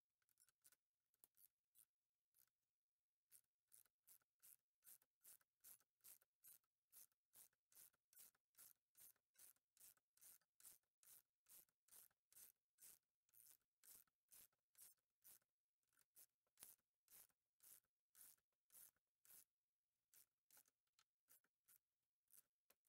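Ratchet wrench clicking faintly in an even rhythm, about two clicks a second, as it turns the threaded rod of a bearing press that draws a new rear wheel bearing into its bore.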